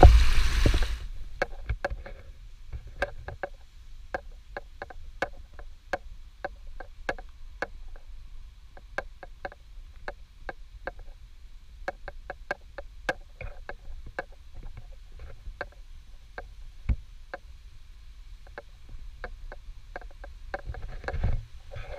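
A small creek cascade rushes for about the first second, then stops. After that, a hiker's footsteps on a leaf-littered trail come as irregular sharp ticks and knocks, about two a second, over a low rumble, picked up through a GoPro's waterproof case.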